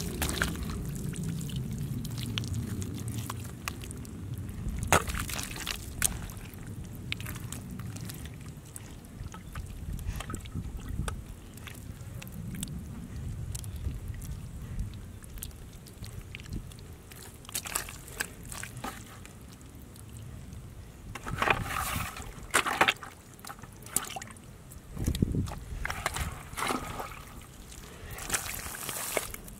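Hands digging and scooping through wet mud and muddy water: irregular squelches and sloshes, busier in the last third.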